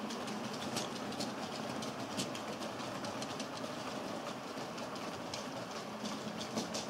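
HO scale model freight train rolling past on the layout: a steady rumble of small metal wheels on the track, with many irregular light clicks.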